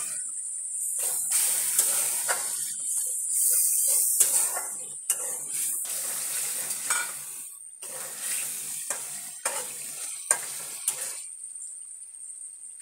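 Spice paste sizzling in oil in an aluminium pot while a metal spatula stirs and scrapes it, with sharp clinks of the spatula against the pot. Pieces of koral (barramundi) fish are added and stirred through. The sizzle fades near the end.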